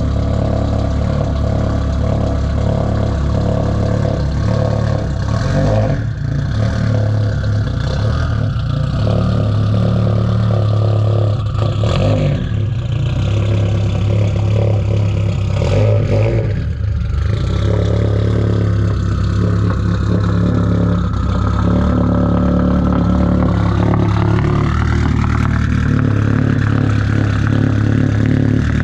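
Car engine idling steadily, with a few short knocks and, late on, a rev that rises in pitch.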